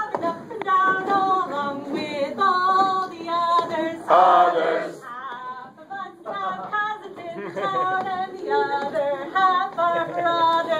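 A crowd of men and women singing a sea chanty together, unaccompanied, in held, stepping notes, with a brief break a little past the middle.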